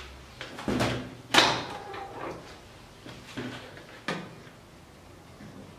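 Light knocks and clunks on plastic as flour is spooned from a tub into a stand mixer's bowl and the mixer head is tilted up. There are five or six separate knocks, the loudest about a second and a half in. The mixer motor is not running.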